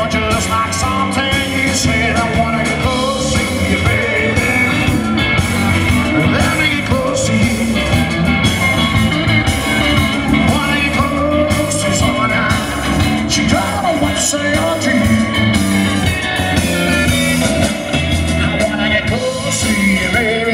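Live roots rock and roll band playing at full volume: electric guitars, electric bass and drum kit.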